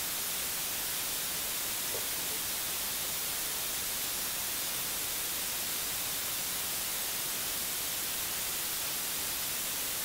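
A steady, even hiss of recording noise, strongest in the high end, with no other sound standing out.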